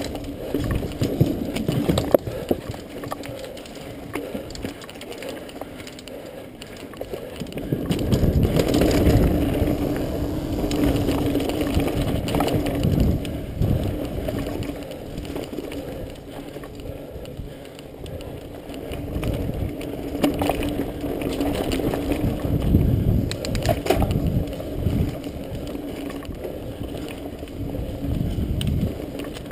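Mountain bike riding down a dirt singletrack, heard from a handlebar-mounted camera: a steady rumble of tyres and bike over the trail that gets louder about a quarter of the way in, with a few sharp knocks over bumps.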